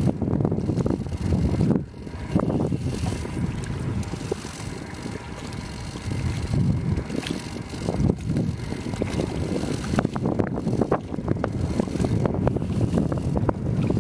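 Wind buffeting the microphone: an uneven, rumbling noise with small crackles, dipping briefly about two seconds in.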